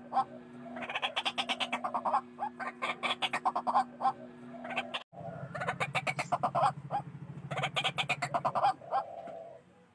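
White-breasted waterhens calling loudly: bursts of rapid, harsh, repeated notes, one series after another. The sound cuts out abruptly about halfway, as at a splice, then resumes over a steady low hum.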